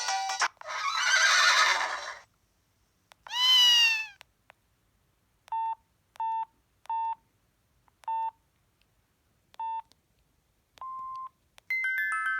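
Preloaded ringtones and alert sounds of a Samsung SGH-C100 mobile phone played one after another through its speaker. First a noisy burst, then a short sound that bends in pitch, then six short beeps at uneven spacing and one longer beep. A chiming melody begins near the end.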